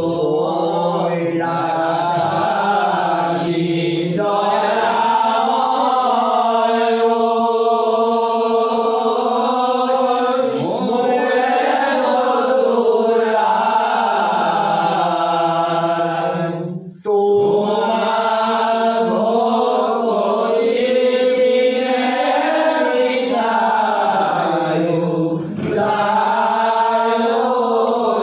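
A group of men chanting an Assamese Negera Naam devotional hymn in unison, holding long, drawn-out notes that slide up and down. The chant breaks off briefly about 17 seconds in and dips again near 25 seconds.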